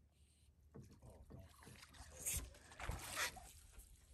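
Faint water lapping against a small boat on calm water, with quiet muffled talk and two brief rushing swishes in the second half.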